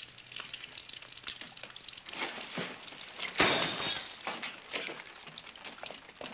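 Glass shattering: one loud, sudden crash about three and a half seconds in that dies away over about half a second. Smaller clinks and clatters come before and after it.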